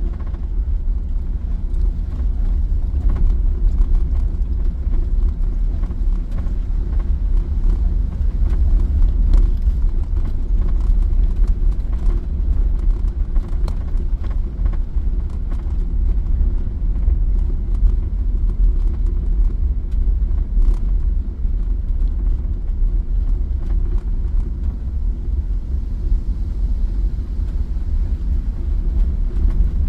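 A van driving: steady low rumble of engine and road noise, with a few faint clicks and rattles.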